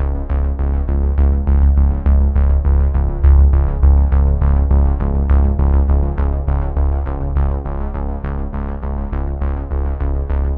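Background music: synthesizer with a steady beat and a sustained bass.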